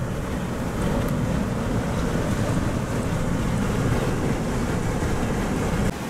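Typhoon-driven waves breaking over a lakeside seawall and gusting wind, heard from inside a car as a steady, dense rumble.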